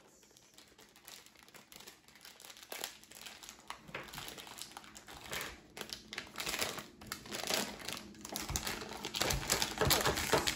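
Plastic gummy-candy bag (Haribo Twin Snakes) crinkling as it is handled, twisted and pulled at to open it; the crinkling grows louder and busier toward the end.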